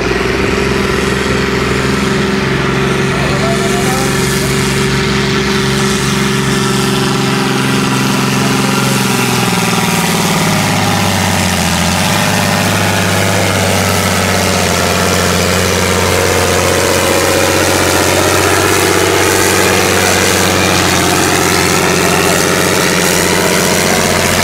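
Diesel engine of a John Deere farm tractor running hard under load as it pulls a weight-transfer sled in a tractor pull. It is a loud, steady drone whose note steps lower about ten seconds in.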